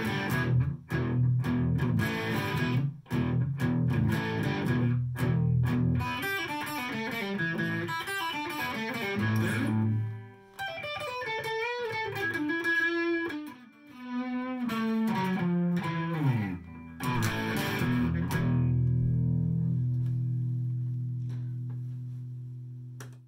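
Greg Bennett Avion AV-3, a Les Paul-style electric guitar with Duncan-designed pickups, played through an amp on a light crunch (mild overdrive). Choppy strummed chords give way to single-note runs that step downward, and it ends on a chord left to ring and fade away.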